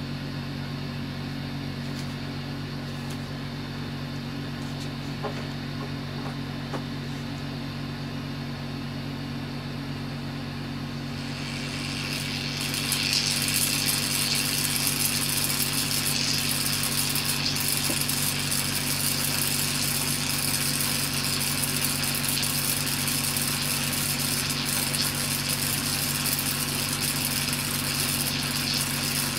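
Steady low electrical hum, then about twelve seconds in an electric discharge at an electrode tip in salted water starts sizzling and crackling, and keeps on steadily.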